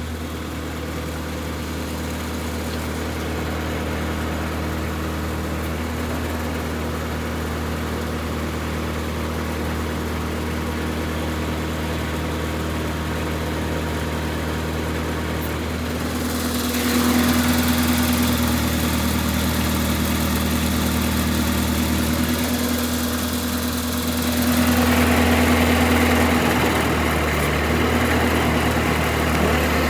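Stump grinder's engine running steadily. About halfway through it grows louder and noisier, and louder again near the end.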